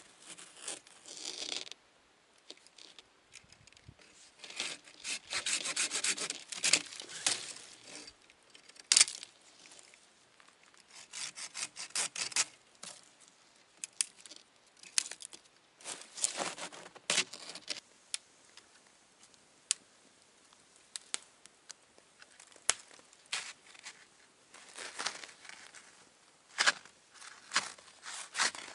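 Red-handled folding camp saw cutting through a thin wooden sapling in several bouts of quick back-and-forth strokes, with quiet pauses between them. There is one sharp crack about nine seconds in.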